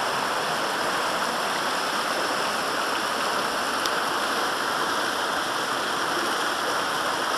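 Fast mountain river rushing over rocks in white-water rapids, a steady, unbroken rush of water.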